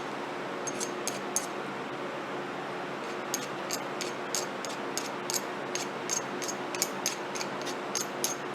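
A 21/64-inch hand reamer being turned back and forth in a mounting hole under downward pressure, giving a series of light, sharp clicks, irregular at about one or two a second and more frequent toward the end, over a steady hum.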